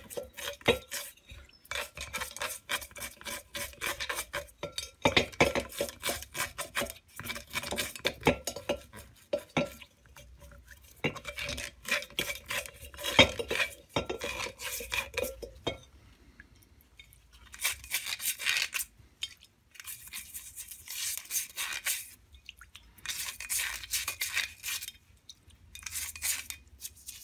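A metal gearbox casting clinking and knocking against a glass bowl as it is turned and scrubbed in paraffin, with a faint ringing. After a little over halfway, the clinks give way to short bursts of brush scrubbing.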